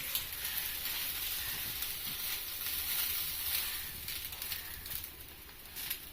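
Butter sizzling in a hot pan as a bun toasts on one side, a steady hiss that eases off after about four seconds, with a few faint clicks near the end.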